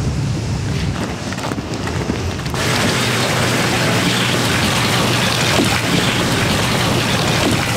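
A low rumble, then a steady hiss of rain that cuts in suddenly about two and a half seconds in.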